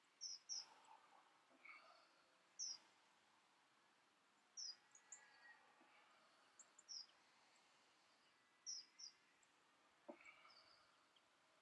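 Faint, short, high bird chirps, often in quick pairs, every second or two over a quiet outdoor hush.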